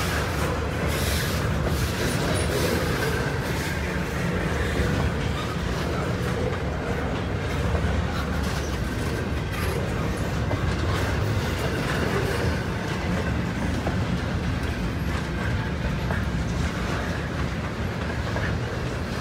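Railroad cars of a passing train rolling steadily along the track, with continuous wheel-on-rail noise.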